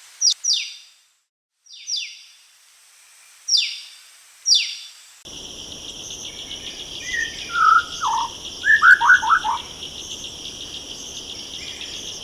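An Andaman drongo gives several sharp calls, each falling in pitch. About five seconds in, a steady, shrill insect chorus starts, and over it a bird gives a short run of whistled notes.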